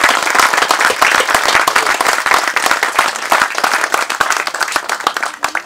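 Small audience applauding: dense, steady clapping from many hands that thins out near the end.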